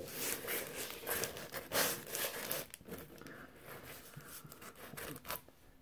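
Comic books in plastic sleeves being handled, the plastic crinkling and rustling, busiest in the first three seconds and quieter after.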